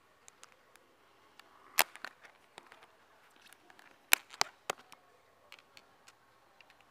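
Lid of a plastic takeaway food container being prised open: a few sharp plastic clicks and snaps, the two loudest about two seconds and four seconds in, each followed by smaller clicks.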